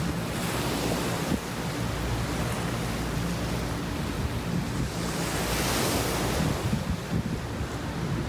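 Ocean surf breaking and washing up a sand beach, surging louder twice: about half a second in and again near the middle to late part. Wind rumbles on the microphone underneath.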